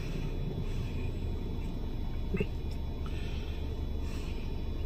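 Steady low wind rumble on the microphone, with a brief faint sound about two and a half seconds in.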